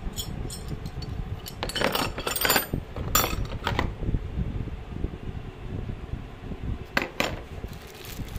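Steel drill bits and chisels clinking against each other and clattering into the hard plastic slots of a tool case: a run of clinks about two to four seconds in, and two more near the end, over low handling noise.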